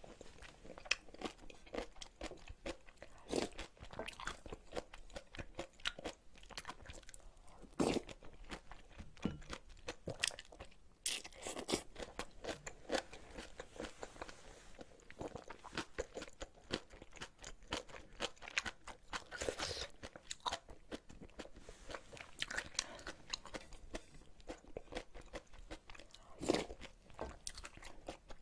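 Close-miked eating sounds: a person chewing crunchy kimchi, with many short crunches and mouth clicks.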